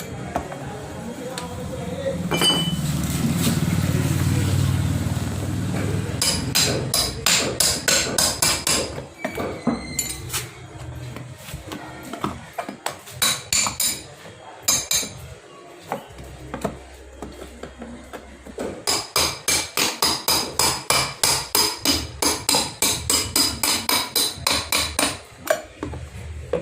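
Rapid hammer blows on the hard plastic case of a sealed lead-acid inverter battery being broken open, struck in quick runs of about three to four a second. Before the blows start there are a few seconds of low rumbling.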